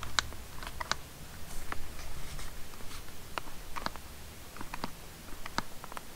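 Irregular light plastic clicks and crackles, about a dozen, from a stiff clear blister pack being handled while a thumb presses the press-to-test button of the LED torpedo level inside it.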